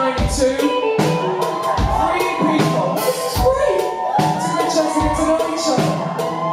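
Pop-rock band playing live, with a kick drum thudding every second or so under sustained keyboard and guitar lines and cymbal hits.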